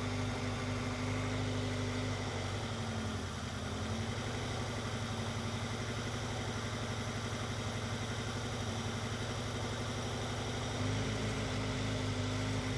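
2001 Honda CR-V's B20 four-cylinder engine idling with a misfire. About three seconds in the idle note turns into an uneven pulsing beat, and it steadies again near the end.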